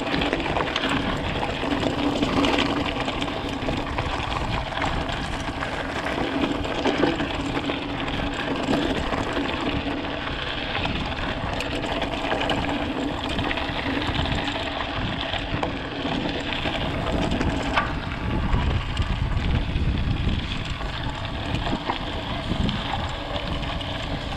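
Mountain bike rolling over a dry dirt and gravel trail: steady tyre noise with small knocks and rattles from the bike, and wind rumbling on the handlebar-mounted action camera's microphone.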